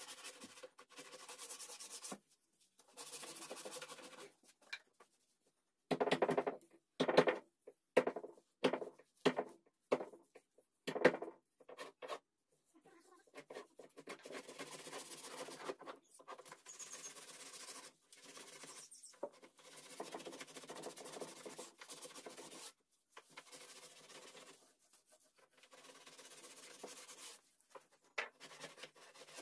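Polishing pad rubbed back and forth over carved teak wood, hand-applying polish: dry, scratchy strokes in short bursts. For several seconds about a fifth of the way in, the strokes come louder and sharper, about two a second.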